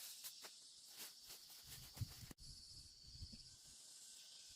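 Near silence: faint outdoor ambience with scattered soft rustles and clicks, and a faint high steady buzz for about a second midway.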